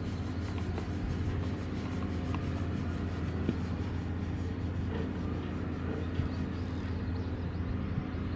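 Spinning reel cranked at a steady pace to retrieve a squid jig, a faint rhythmic ticking that stops about seven seconds in as the retrieve is halted. A steady low rumble runs underneath throughout.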